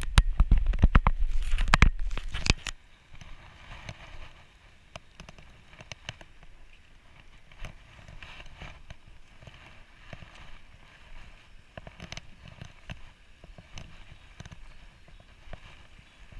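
Wind buffeting and handling knocks on the microphone, loud for the first three seconds, then a faint background with scattered small ticks while the metal detector is swung over wet sand.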